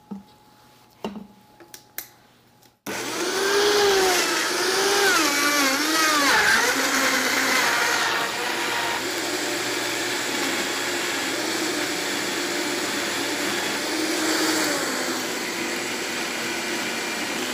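High-powered countertop blender pureeing whole onion and Roma tomatoes. After a few light clicks of the lid and tamper, the motor starts abruptly about three seconds in. Its pitch wavers up and down while the chunks break down, then settles into a steady whir as the mix turns to a smooth puree.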